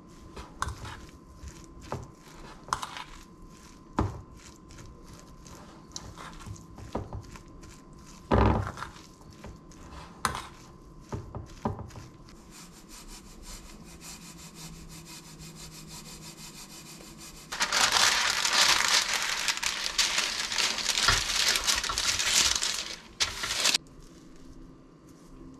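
A metal spoon mixing a mashed potato and tuna mixture in a stainless steel bowl: scraping with scattered knocks and clicks against the bowl. Near the end, a loud rushing noise of unclear source runs for about six seconds, then stops suddenly.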